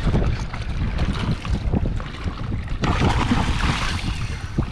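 Wind buffeting the microphone on open sea, with water washing around the kayak. A louder rush of hiss comes in about three seconds in and eases off near the end.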